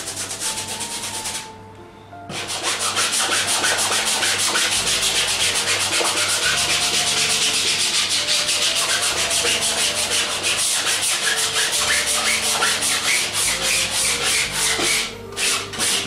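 Stiff bristle paintbrush scrubbed quickly back and forth across a stretched canvas, spreading and blending oil paint. It makes a steady scratchy rubbing of several strokes a second, with a short pause about a second and a half in.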